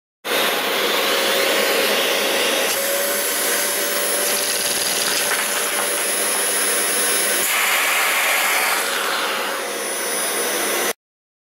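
Powerful household vacuum cleaner running steadily, a loud rushing noise with a faint steady tone beneath it, its hose supplying suction to a Lego vacuum engine. The sound cuts off suddenly near the end.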